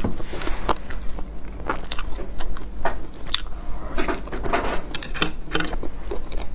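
Close-miked chewing of a soft steamed bun (baozi): wet mouth clicks and lip smacks, with another bite taken about four seconds in.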